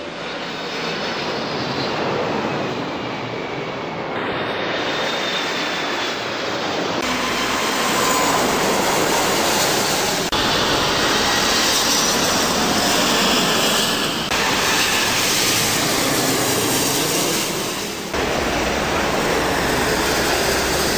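Jet airliners passing low overhead on the landing approach, their engines making a steady, loud rush of noise with a faint falling whine. The sound comes in a series of short spliced clips that change abruptly every three to four seconds.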